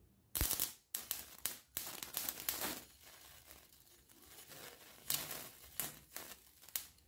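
Electric arc from a car battery fed through jumper cables, crackling and sputtering in short irregular bursts as the rod touches and lifts from thin sheet metal to lay tack welds.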